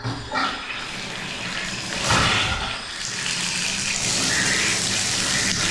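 Water running from a wall-mounted bath mixer spout into a bathtub, starting suddenly as the lever is opened, with a brief louder gush about two seconds in before settling into a steady flow.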